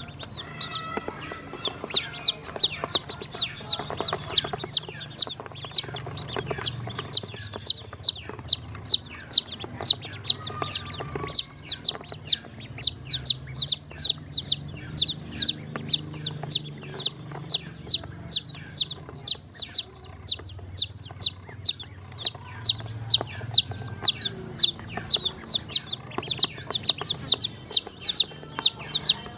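Black chicks and yellow ducklings peeping: a steady stream of short, high-pitched, falling peeps, a few calls a second, getting louder and more regular after the first couple of seconds.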